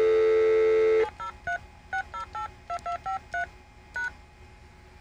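Cisco voice-over-IP phone giving a loud, steady dial tone for about a second, cut off by the first of about ten short touch-tone (DTMF) keypad beeps as a phone number is dialed.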